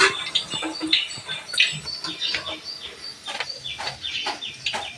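Metal tongs and a slotted spoon clinking and scraping against a steel frying pan and strainer bowl while gathiya fry in oil, in short irregular clatters. A bird chirps over and over in the background, about twice a second.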